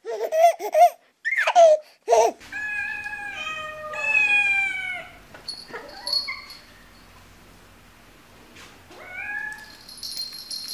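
A few short, loud, wavering high-pitched vocal sounds in the first two seconds, then domestic cats meowing: three drawn-out meows in a row, each falling slightly in pitch, and a single rising meow near the end.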